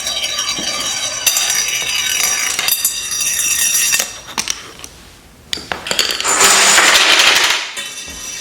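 Marbles rolling and clattering through a marble run, with clinks and ringing tones as they strike the track. A louder, dense rattle comes from about six to seven and a half seconds in.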